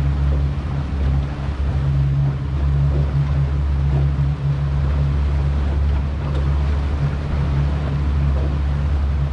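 A 70 hp outboard motor running steadily, pushing the boat along at trolling speed, with a steady low drone under the rush of water and wind.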